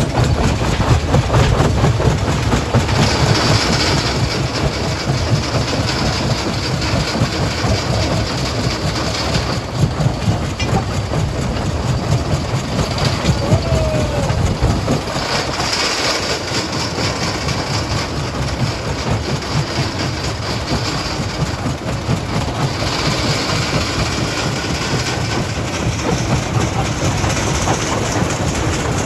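Stone crushing plant running: a loud, continuous clatter and rattle of rock going through the jaw crusher over a low rumble of machinery.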